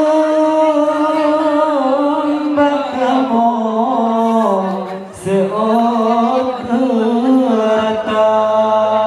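Slow unaccompanied male chant for the Acehnese Rapa'i Geleng dance, sung in long held notes that waver and slide, with no drumming. There is one short break about five seconds in.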